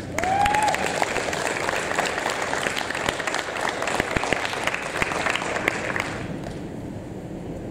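Audience applauding, with a short cheer about half a second in; the clapping thins out after about six seconds.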